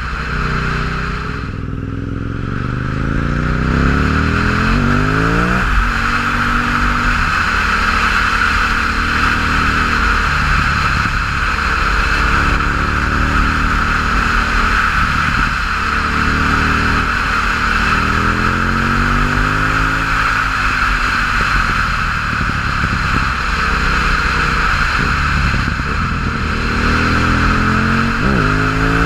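2006 KTM 950 Supermoto's V-twin, on an open MIVV exhaust with no dB-killers, accelerating hard through the gears. Its pitch climbs, drops sharply at a shift about five and a half seconds in, then climbs again several more times.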